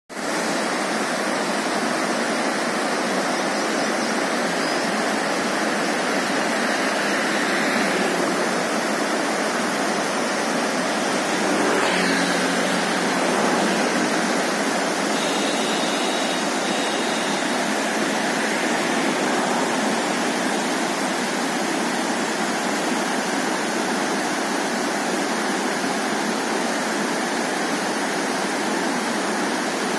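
Shallow, fast mountain river rushing over stones and boulders: a steady, even roar of white water.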